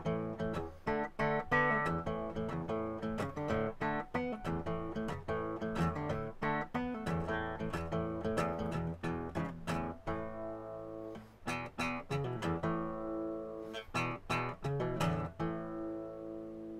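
Background music: a strummed acoustic guitar, its strums thinning out in the second half and a last chord ringing on near the end.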